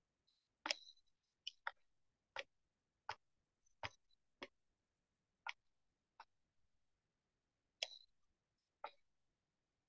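Computer mouse clicking: about ten sharp, separate clicks at uneven intervals, over near-silent room tone.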